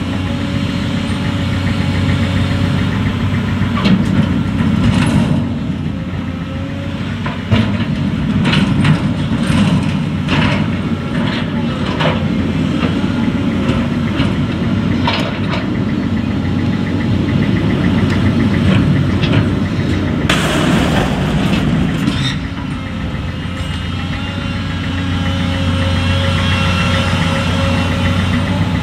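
Diesel engine of a tracked excavator running steadily, with repeated sharp metallic clanks and knocks from the steel peat wagons being handled. About two-thirds of the way through, a rushing noise lasts about two seconds.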